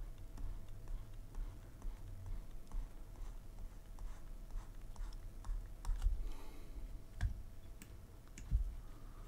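Faint, irregular clicks and taps of computer input at a desk: keyboard keys and a stylus on a drawing tablet, with a few louder clicks near the end.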